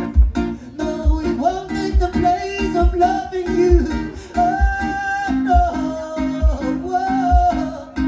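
Music: strummed acoustic guitar with a singing voice that comes in about a second in, over a steady low beat.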